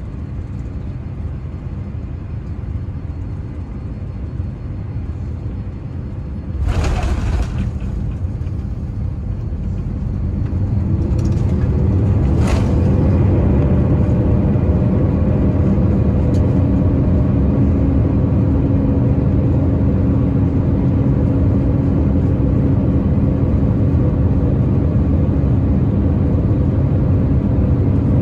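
Boeing 787-9 landing, heard from inside the cabin: a steady rumble, then a sudden jolt of noise at touchdown about a quarter of the way in. From about ten seconds in the engines rise with a climbing whine into a steady loud roar as reverse thrust slows the jet on the runway.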